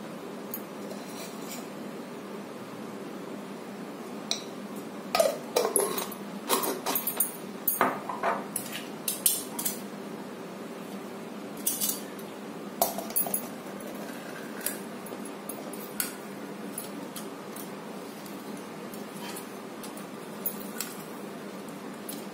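A metal spoon and a metal lemon squeezer clinking and tapping against a tumbler and a small container while a drink is mixed. The clinks come thick and fast from about four to ten seconds in, then singly a few more times, over a steady low hum.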